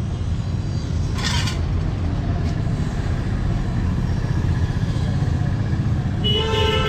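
Steady low rumble of a motor running, with a short hiss of compressed air about a second in, blowing dust out of a clogged motorcycle air filter. A brief pitched tone sounds near the end.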